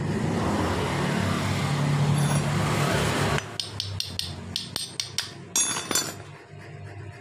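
An engine running steadily with a low drone, cutting off abruptly about three and a half seconds in. Then comes a quick run of sharp metallic clicks and clinks as the aluminium water pump housing and its parts are handled.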